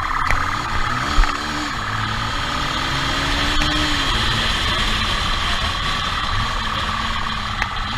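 Motorcycle engine running under way, heard from the bike itself. There is a short low thump about a second in.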